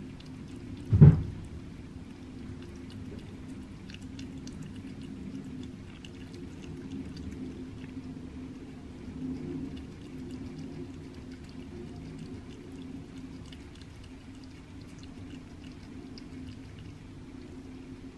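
A cat chewing and licking wet raw rabbit meat off a paper plate: soft wet clicks and smacks over a steady low hum, with one loud low thump about a second in.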